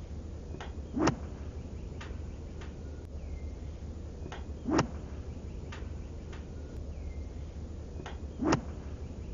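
Seven iron striking a golf ball in slowed-down replay, three sharp strikes about every four seconds as the swing repeats. Faint ticks and a low steady hum lie between them.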